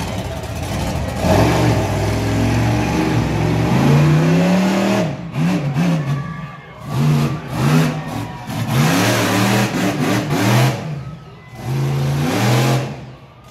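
Monster truck engine running at high revs, then revved up and down in about five short bursts, its pitch climbing and dropping each time.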